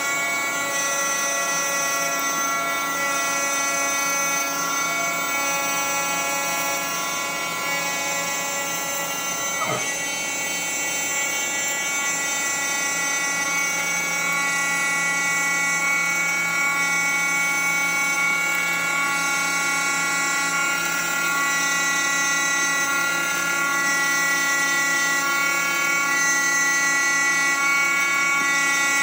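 Small CNC mill's spindle running steadily with a high whine while surfacing a reference plane under flood coolant.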